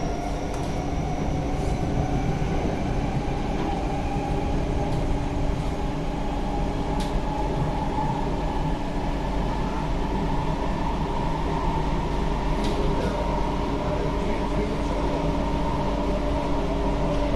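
SMRT C151B metro train running at speed, heard from inside the carriage: a steady rumble of wheels on rail under the whine of the electric traction motors, whose tones drift slowly in pitch. A few faint clicks sound over it.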